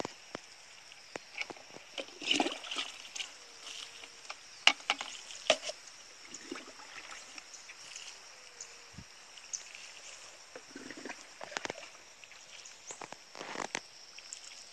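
Water scooped by hand from a plastic bucket and splashed onto bare soil, in scattered splashes and knocks, the loudest a few seconds in. A steady high insect drone runs underneath.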